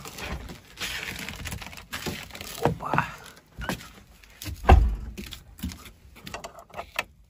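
Clicks, knocks and rustling of someone moving about and handling things, with one heavy thump a little under five seconds in.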